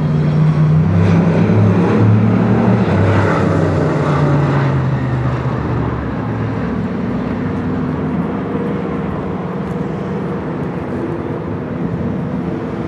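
Dirt-track race car engine running as the car laps the track. It is loudest over the first few seconds, with its pitch shifting, then slightly fainter and steadier.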